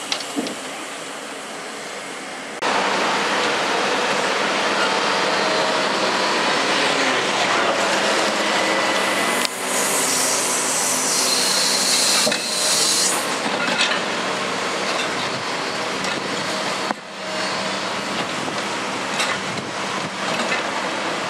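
Heavy construction machinery at work: the diesel engines of a hydraulic excavator and tipper trucks running steadily. It gets louder after about two and a half seconds, and a loud hiss lasts about three seconds around ten seconds in.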